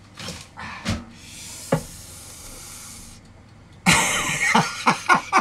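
A steady hiss for about two seconds, then a man breaks into a loud laugh near the end.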